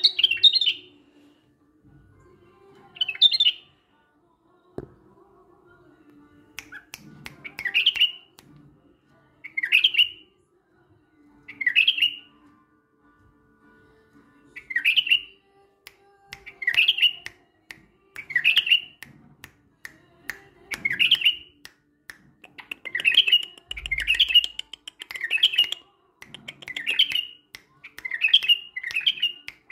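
Caged male bulbul singing short, loud phrases, about one every two seconds, coming quicker and closer together in the last several seconds.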